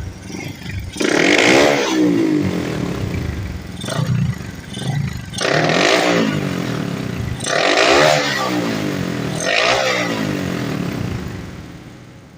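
Single-cylinder Honda Wave 125 motorcycle engine, bored to 57mm with big valves and a racing camshaft, running through an open chicken pipe exhaust. It is blipped to full throttle about four times, each rev falling back to idle.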